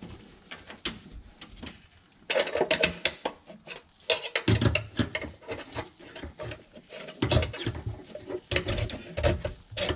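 Handling noise as gloved hands fit a new metal fuel filter to the steel fuel lines: irregular clicks, clinks and knocks, with a few duller thumps.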